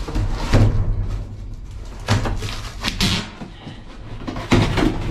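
Rummaging through a dumpster: several separate knocks and clatters of containers and debris being shifted and handled.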